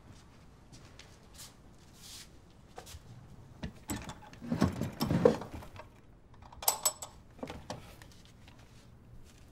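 Small objects being handled on a dressing table: rustling and knocking, loudest about halfway through, then a sharp metallic clink and a few lighter knocks.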